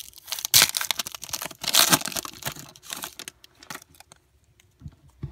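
Foil wrapper of a Topps Fire trading-card pack being torn open and crinkled by hand: loud crackling in bursts for about three seconds, then thinning to a few faint clicks and rustles.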